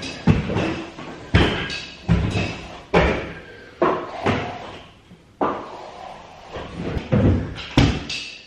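A series of sharp knocks and thuds, spaced unevenly about once a second, each dying away quickly.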